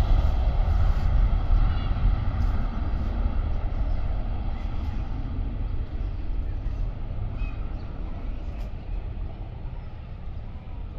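Rolls-Royce Trent 700 turbofans of an Airbus A330-300 under power on the runway: a deep roar with a high fan whine, fading steadily as the aircraft draws away.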